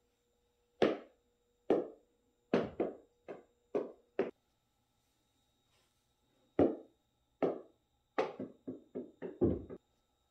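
A small ball bouncing on a wood floor, a series of sharp knocks. A second run starts about six and a half seconds in and quickens into rapid taps near the end as the ball settles.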